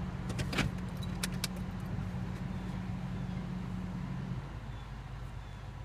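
Excavator's diesel engine running steadily, with a few sharp metallic clinks in the first second and a half. The engine note drops to a lower pitch about four and a half seconds in, as the engine is throttled down.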